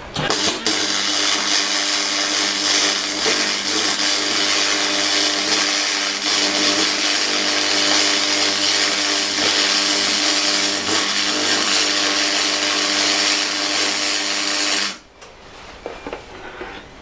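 MIG welding arc running in one continuous bead: a steady crackling sizzle over a low steady hum, starting at once and cutting off suddenly near the end, followed by a few faint clicks.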